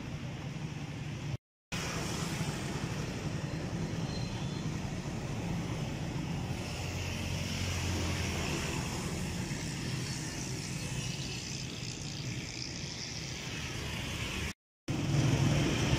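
Street traffic with motor vehicle engines running: a steady low engine hum under a wash of road noise. It cuts out briefly twice, about a second and a half in and near the end.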